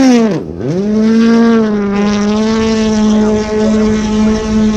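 A 1.6-litre turbocharged four-cylinder World Rally Car engine at high revs. About half a second in, the revs drop sharply and climb straight back up, then hold steady.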